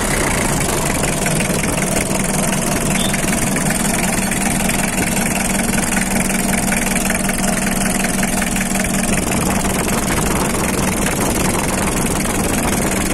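Mitsubishi L300's 2.5-litre four-cylinder diesel engine idling hot with a steady, crisp diesel clatter. The owner takes this as a healthy engine, with no blow-by from the open oil filler.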